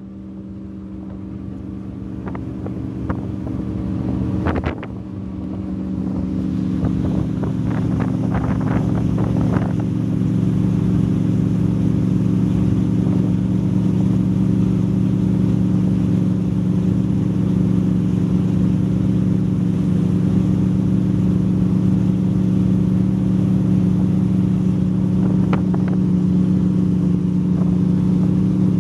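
Fountain Lightning powerboat's engines running under way, building up over the first several seconds and then holding steady at speed.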